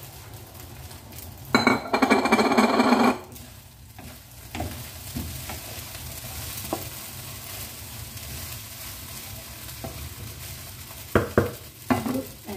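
Egg fried rice frying in a wok: a loud burst of sizzling lasting about a second and a half, then a wooden spatula stirring the rice with scattered knocks against the pan, two sharper ones near the end. A steady low hum runs underneath.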